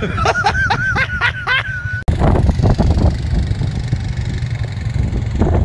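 ATV quad engines running with a dense low rumble. Over the first two seconds a high, wavering voice-like sound rises and falls rapidly several times; the sound cuts out abruptly about two seconds in, then the engine rumble resumes.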